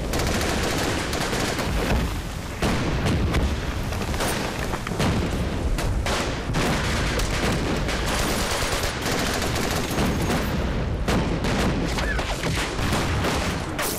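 Continuous battle gunfire: many rifle and machine-gun shots crackling in quick, irregular succession over a low rumble.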